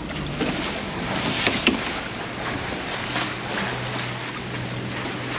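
Wind and sea water rushing past a Leopard 45 sailing catamaran under way, over a steady low drone from its diesel engines as it motor-sails.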